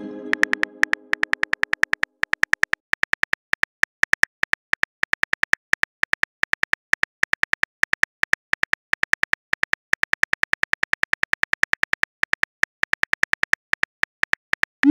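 Phone keyboard typing sounds from a texting app: rapid short key clicks, several a second, as a long message is typed. A chime-like message tone fades out over the first two seconds, and a short rising swoosh comes at the very end.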